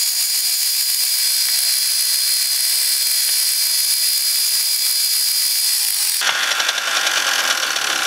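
Delta belt sander grinding down a black pipe nipple pressed against its running belt: a steady, high-pitched hiss with a thin whine. About six seconds in the sound turns rougher and lower.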